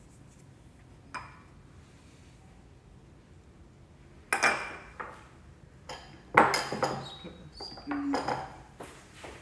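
Spoon and small glass bowls clinking and knocking as they are handled on a kitchen counter: a small tick about a second in, then several clatters from about four seconds in, with one short ringing ping.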